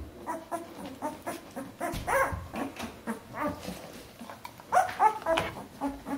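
Two-week-old Bernese Mountain Dog puppies whimpering and squeaking in short calls that rise and fall in pitch, with louder cries about two seconds in and again around five seconds in.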